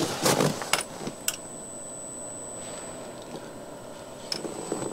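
A few sharp clicks and knocks, like hard objects being handled, in the first second and a half, then a faint steady hiss. Another click comes a little after four seconds and a soft thump near the end.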